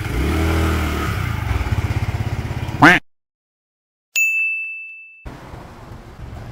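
Small petrol scooter engine starting and running, settling into an even putter of about a dozen beats a second. After a break, a single high electronic ding rings for about a second, followed by low hiss.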